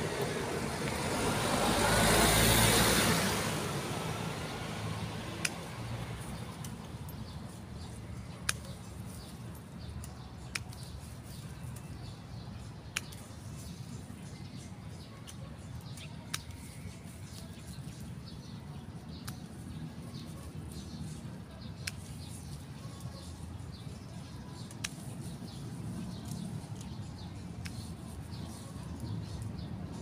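Hand pruning shears snipping tip cuttings from a golden duranta shrub: sharp single clicks, one every two to three seconds, over a steady low rumble. A loud swelling rush of noise fills the first few seconds.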